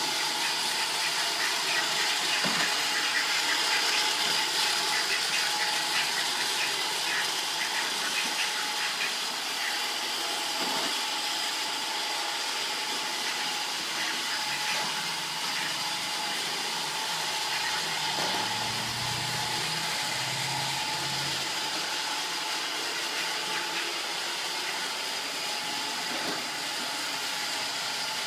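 Roomba robot vacuum running: a steady whirring hiss from its motor and brushes, with a thin high whine.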